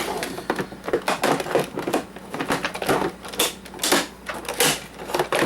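Quick, irregular clicks and knocks of hard plastic parts being handled and worked loose as an Oster coffee maker's housing is taken apart.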